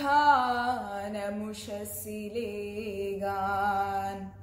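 A girl's unaccompanied voice chanting a Malayalam poem in a slow, sung recitation, holding long drawn-out notes. It breaks off just before the end.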